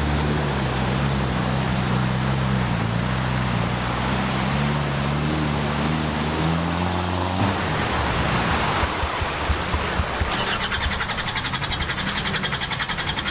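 Off-road vehicle engine running, its pitch wavering slightly, for the first seven seconds or so, then giving way to a rougher noise. Near the end a fast, even, high ticking sets in.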